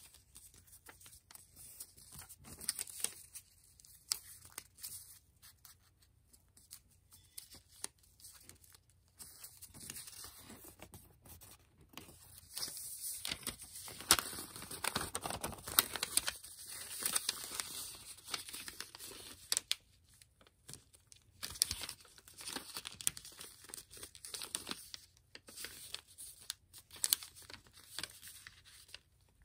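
A sheet of kami origami paper being folded and creased by hand: irregular rustles and sharp crackles as fingers bend the paper and run along the folds.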